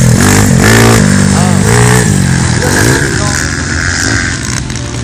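Pit bike engine running with a steady low drone, its pitch rising and falling as it is revved, growing quieter near the end.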